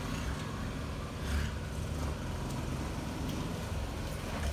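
Motor vehicle engine running, a steady low rumble with faint passing noises higher up.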